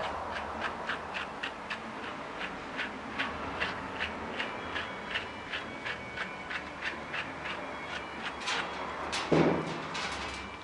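Grooming brush strokes through a poodle mix's long coat: quick, scratchy strokes at about three a second. A louder thump comes near the end.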